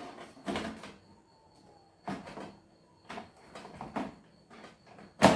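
Basket drawer of an Arno air fryer being pushed into the housing, knocking and scraping a few times, then a sharp click near the end as it locks into place.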